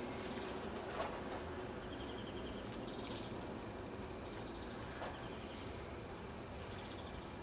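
Hands pressing and shifting loose gravel, giving a small click of stones about a second in and a fainter one near five seconds, over a steady outdoor hiss. A faint high chirp repeats about every half second throughout.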